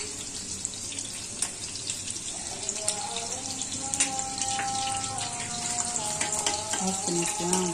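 Green chillies frying in hot oil in a kadai: a steady sizzling hiss dotted with many small crackles and pops.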